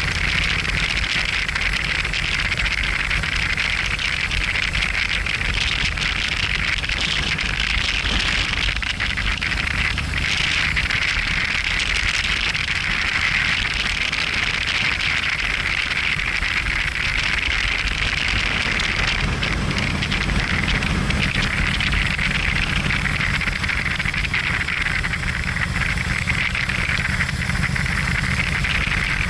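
Motorcycle riding along, its engine running steadily under an even rush of wind noise on the bike-mounted microphone; the engine note changes about two-thirds of the way in.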